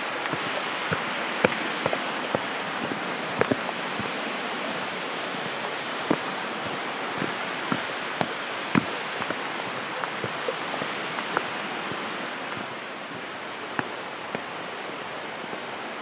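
Steady rush of falling water, with irregular sharp ticks and small splashes scattered through it; the rush eases a little about three-quarters of the way through.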